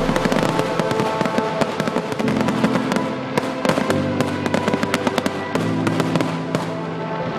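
Fireworks finale barrage: many shells bursting in quick succession with bangs and crackling, over music that plays throughout.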